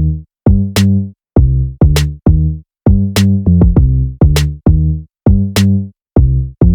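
Electronic intro music: a drum-machine beat of short, punchy bass-and-drum hits with crisp clicks, about two to three a second, each cut off into a brief silence.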